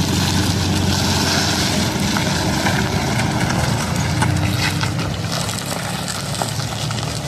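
Steady vehicle noise: a low hum under a hiss, with no breaks.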